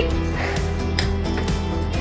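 Background music with held notes over a steady low pulse.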